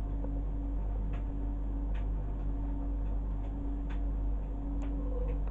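Steady low hum of saltwater aquarium equipment such as pumps, with a few faint ticks scattered through it.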